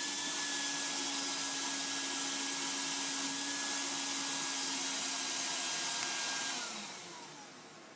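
Wet/dry vacuum motor running steadily, used to suck out a clogged AC condensate drain line, then switched off about six and a half seconds in, its pitch falling as it winds down.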